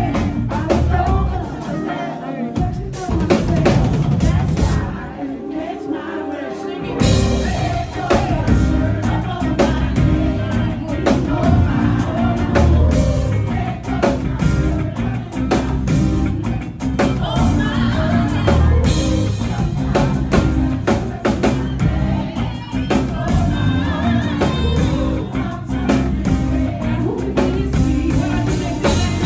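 Live band playing drum kit and electric guitar behind a lead singer and backing singers. The bass and kick drum drop out for a few seconds twice, and the full band comes back in about seven seconds in.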